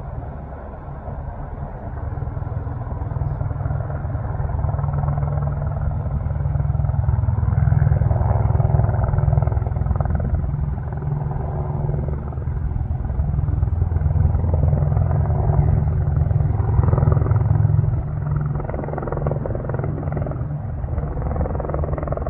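Helicopter rotor running close by, a steady low pulsing chop that grows louder about six seconds in and eases slightly near the end.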